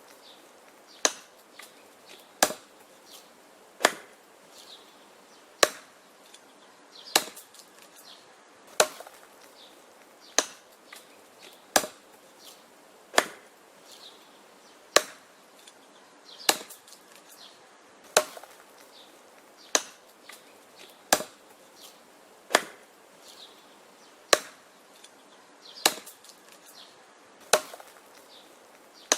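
Wood being chopped: sharp, evenly paced strikes of a blade into wood, about one every second and a half, each followed by a few lighter knocks.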